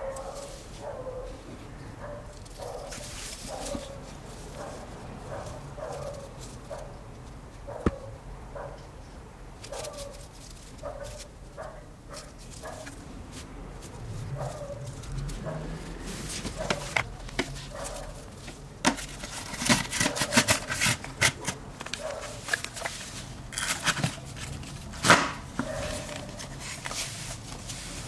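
Clicks and knocks of plastic vacuum-cleaner brush-head parts being handled and fitted back together, busiest in the second half, with one sharp click near the end. Through the first half a faint short whine repeats about once a second.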